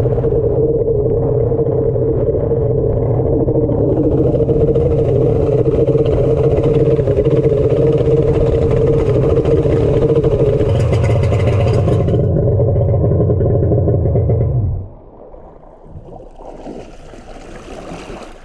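Kawasaki 1100 three-cylinder two-stroke jet ski engine running steadily at speed, with water spray hissing, then falling away abruptly about fifteen seconds in. The freshly rebuilt engine is not running right, which the rider takes for an ignition problem.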